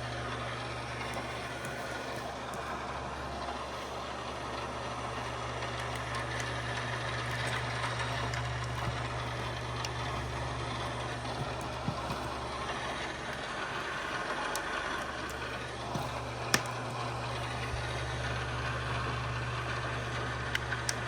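Steady low mechanical hum with an even hiss behind it, and a couple of small faint clicks as plastic LEGO pieces are handled.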